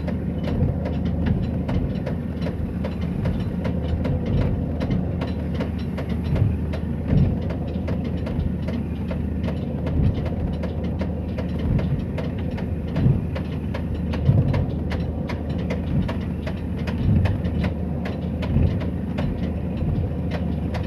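Boat engine running steadily with a rapid knocking clatter, and heavier thumps every second or two.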